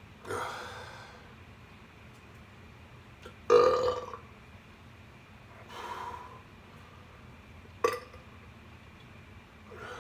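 A man belching repeatedly from swallowed soda gas: four burps a couple of seconds apart, the second the loudest and the fourth short and abrupt, with another starting right at the end.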